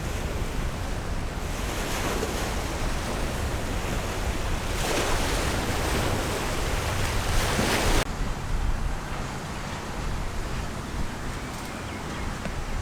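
Wind buffeting the microphone over the wash of sea waves on the beach, a steady noisy rumble. The noise swells for a few seconds around the middle and then drops off suddenly.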